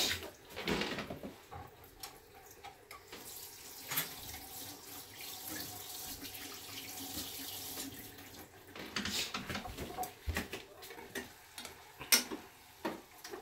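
Kitchen tap running into a sink for several seconds, with scattered clicks and knocks from handling things around it.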